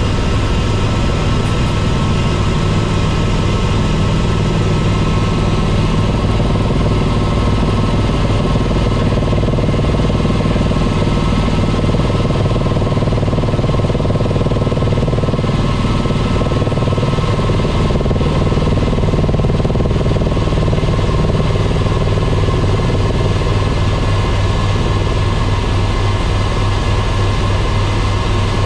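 Helicopter's turbine engine and rotor running, a loud steady drone with a fast low throb.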